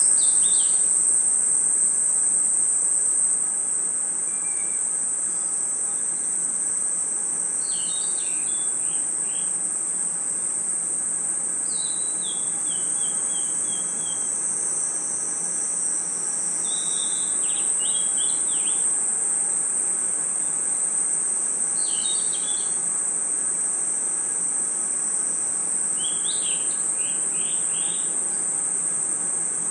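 Steady high-pitched chorus of night crickets and other insects. Over it, short bursts of bird chirps break in about every four to five seconds.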